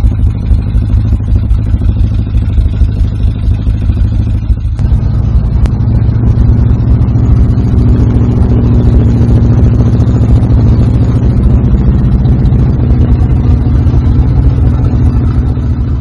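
1972 MGB GT's 1.8-litre B-series four-cylinder engine, with a freshly fitted modified Peter Burgess cylinder head and twin SU carburettors, running steadily at a constant speed. About five seconds in the sound changes abruptly, from the cabin to outside the car by the open engine bay.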